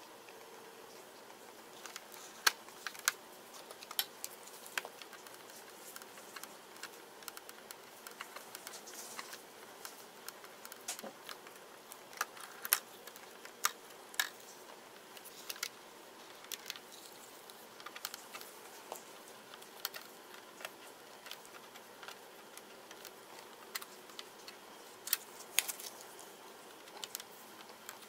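Irregular small clicks and taps of a laptop's plastic and metal parts being handled and worked apart with tools, over a faint steady hiss.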